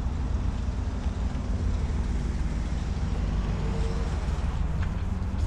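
Volkswagen 2.0L TSI four-cylinder engine idling with a steady low rumble.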